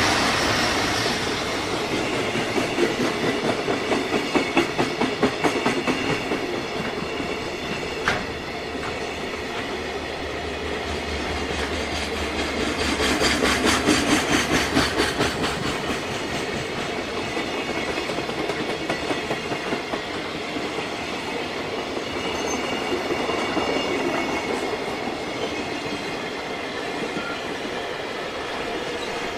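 Freight train wagons passing at close range, their wheels clattering over the rail joints in a rhythmic clickety-clack that swells twice and eases off between.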